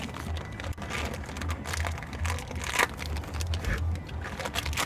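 Rustling and light clicking from the small washer agitator dogs and their packaging being handled, over a low hum.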